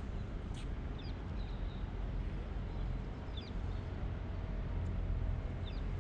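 Several short, high bird chirps over a steady low rumble of outdoor background noise.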